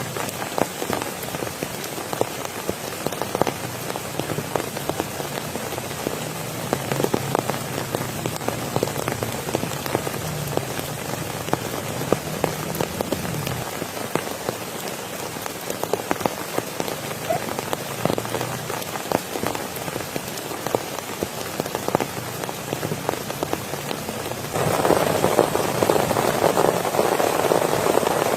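Steady rain with many separate drops tapping close by. About 25 seconds in it suddenly grows louder and fuller, and stays that way.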